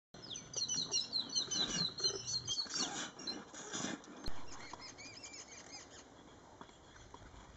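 Small birds chirping in quick, repeated high notes that come thickest in the first two seconds, then thin out to scattered softer calls. A few lower scuffing sounds and a single click about four seconds in run underneath.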